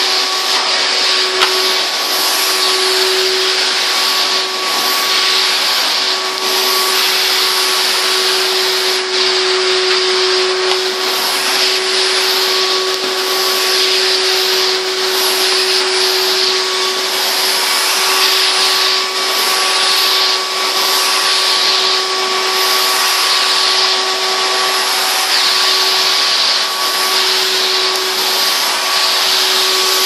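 Numatic Henry Hound cylinder vacuum cleaner running, very noisy: a steady motor whine over a strong rushing of air, rising and dipping slightly as its floor nozzle is pushed over carpet.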